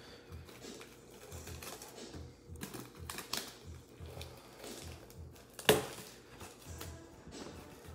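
Plastic shrink wrap crinkling and crackling in small irregular clicks as gloved hands work it off a trading-card hobby box, with one louder click near the six-second mark.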